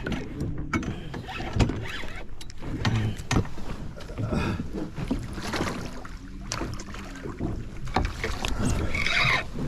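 Irregular knocks, clicks and rubbing from handling rod, reel and landing net on a small fishing boat, with wind on the microphone.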